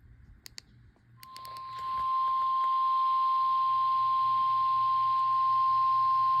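NOAA Weather Radio 1050 Hz warning alarm tone: one steady, unwavering pitch that comes in about a second in after a few clicks, swells to full level and holds over radio hiss. The tone signals that a warning broadcast follows.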